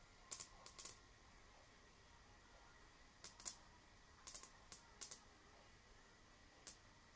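Irregular sharp snaps of high-voltage sparks jumping in a homemade ion wind blower, single or in quick pairs with uneven gaps, over a faint steady high tone. The sparking appears when the blower's current is modulated to try to make it play sound.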